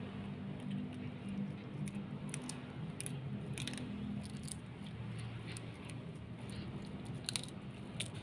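Kitten chewing a hard catfish head, with a series of sharp crunches as its teeth work on the bone. A steady low hum runs underneath.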